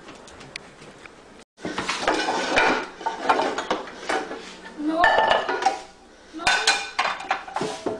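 Pots and pans clanking and clattering as someone rummages through a lower kitchen cabinet, in several bursts starting about a second and a half in.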